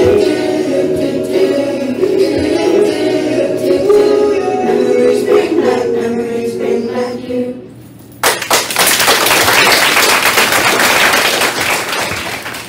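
A group singing a song, which ends about seven and a half seconds in; then applause of many hands for about four seconds, fading near the end.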